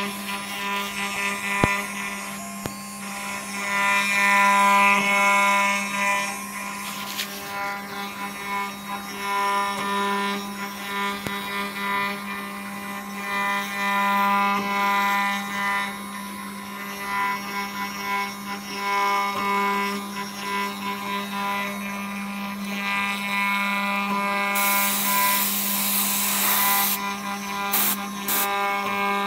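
1325 wood CNC router spindle running with a steady whine while its bit carves a relief into a wood board, the cutting noise swelling and fading as it works. A louder burst of hissing comes near the end.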